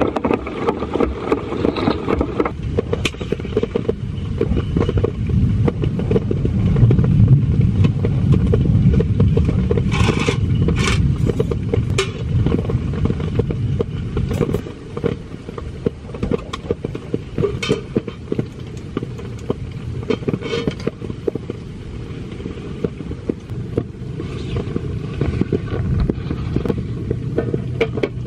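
Heavy rain drumming steadily on a tent, with occasional clicks and scrapes of camping gear being set down and handled on a cloth-covered surface.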